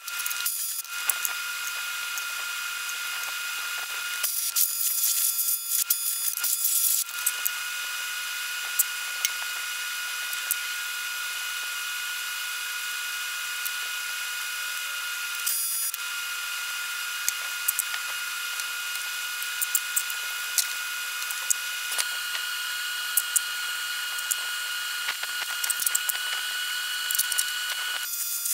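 Electric pressure washer running: a steady motor whine over the hiss of the water jet, stopping and restarting a few times.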